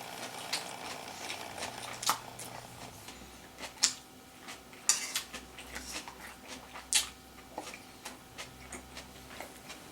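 Eating utensils clicking against dishes during a meal: sharp, irregular clicks every second or two, the loudest about two, four, five and seven seconds in.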